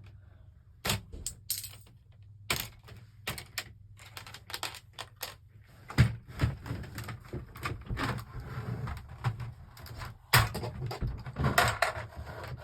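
Plastic Lego bricks and pieces clicking and rattling as they are handled. The clicks are sparse and irregular at first and come thicker in the second half, with a few sharper snaps.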